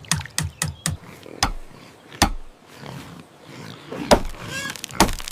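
A quick run of sharp knocks, about five a second, in the first second, then single knocks spaced out, with a short high-pitched call about four and a half seconds in.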